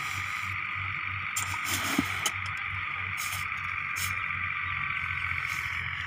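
Wheat grain being scooped with a metal bucket and poured, heard as several short rushes of grain with a sharp clank near two seconds in. Under it runs a steady mechanical hum with a low pulse.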